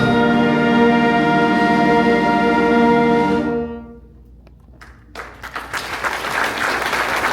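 A wind band holds a loud final chord, which is cut off about three and a half seconds in and rings briefly in the hall. After a short lull with a couple of claps, audience applause breaks out and continues.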